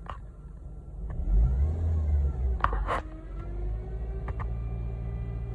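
Honda Civic's power steering making a severe grinding noise over the running engine: a deep rumble, loudest in the first half, with a whine that rises and falls and then holds steady. A few sharp clicks come through, the loudest about three seconds in. The grinding is the sign of a failing power steering system.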